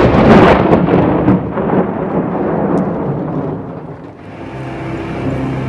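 A loud boom whose long rolling, thunder-like rumble fades over about four seconds. Near the end a low, steady music drone comes in.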